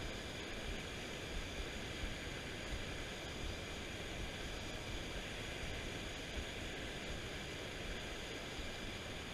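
Steady rushing of a shallow river running over rocks and riffles.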